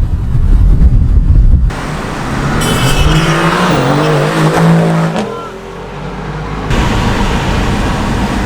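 Heavy wind buffeting on the microphone at first. Then a Mercedes-AMG GT R's twin-turbo V8 revs, its note rising and falling over a few seconds before dying away. Steady road and wind noise follows.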